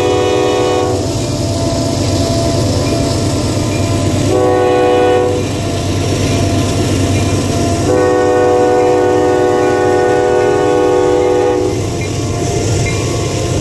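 Norfolk Southern diesel freight locomotive's multi-tone air horn sounding the grade-crossing pattern: a long blast that ends about a second in, a short blast around four seconds in, then a long blast of nearly four seconds, over the steady rumble of the passing locomotives.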